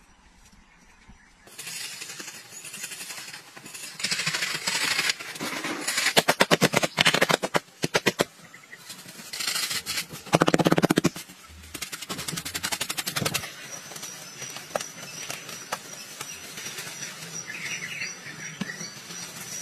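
Bursts of rapid scraping and rubbing strokes as hand tools work wet clay and mud plaster, loudest in the middle. A thin, steady high tone carries on through the last third.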